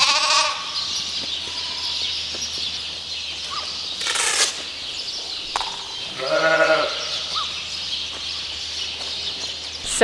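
Sheep bleating in a barn full of ewes: one bleat right at the start and a longer one about six and a half seconds in, over a steady background of the flock. A short rasping noise comes about four seconds in.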